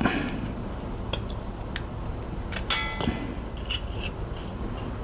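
Small tools and plastic mouse parts being handled during disassembly: light scattered clicks and taps, with one brief metallic ring a little under three seconds in.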